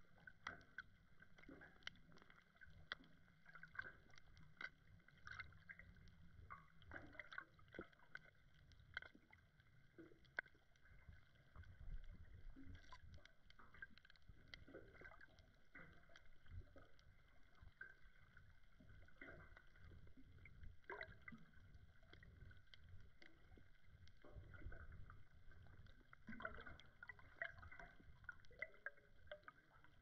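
Faint underwater ambience picked up by a camera's microphone in shallow seawater: a low muffled rumble with many small, irregular clicks and ticks.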